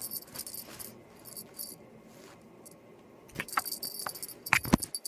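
Small bits of metal jingling in short bursts, with several sharp knocks in the last second and a half.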